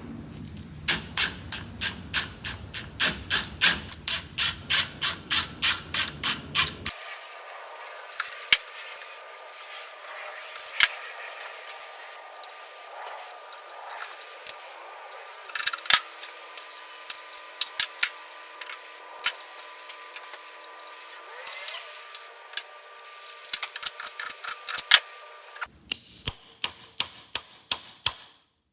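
Hand tools clicking and tapping on metal as self-tapping screws are driven to line up the holes of the rear body seal. There is a steady run of sharp clicks, about three a second, at first, then scattered clicks, then a quick run of clicks near the end, with abrupt cuts in between.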